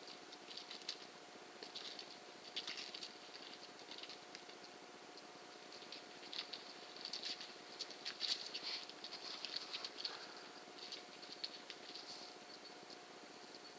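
Night insects calling in irregular bursts of rapid, high-pitched clicking chirps, loudest in the middle, over a faint steady hum.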